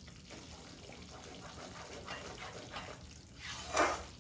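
Wheat flour roasting in ghee in a large kadhai, stirred with a spatula: soft, wet swishing strokes through the runny mixture, the loudest about three and a half seconds in.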